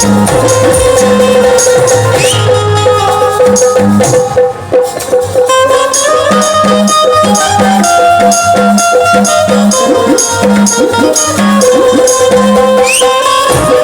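Instrumental music with a steady beat: sharp, evenly spaced high percussion ticks over a low drum pulse and a held melody line. The music thins out briefly about four and a half seconds in.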